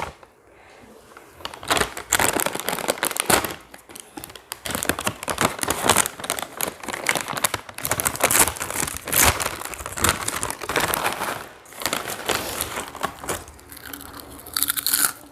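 Plastic potato-chip packet crinkling irregularly as it is handled, for most of the stretch.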